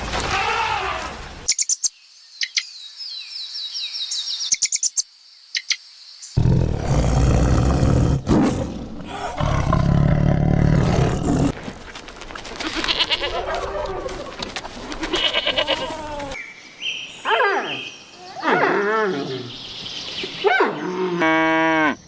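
A string of different animal calls cut one after another: sharp clicks and high chirps about two to six seconds in, a loud low call after that, and pitched calls sliding up and down in the second half.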